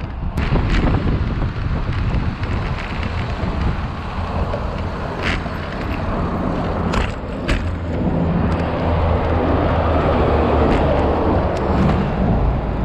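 Riding noise picked up by a bicycle-mounted camera: steady wind and tyre rumble, with a few sharp clicks and rattles from the bike. Motor traffic passing alongside grows louder in the second half.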